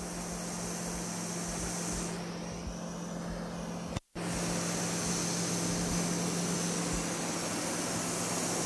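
Diesel engine of a Caterpillar crawler bulldozer running steadily, a constant low hum under a steady hiss. The sound breaks off for a moment about four seconds in, then carries on the same.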